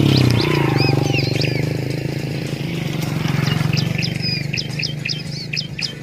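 Bar-winged prinias (ciblek) chirping: quick repeated high chirps, sparse in the middle and thick again near the end. A low droning hum is loudest at the start and fades over the first few seconds.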